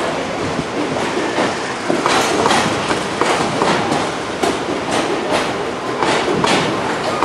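Freightliner bogie hopper wagons rolling past, their wheels clattering over the rail joints in a steady run of clacks over the rumble of the train.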